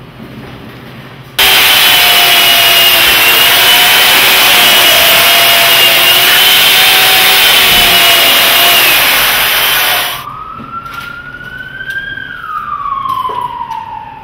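Stihl chainsaw cutting into a block of ice, running loud and steady for about eight seconds before it stops. After it, a wailing tone like a siren rises and then slowly falls.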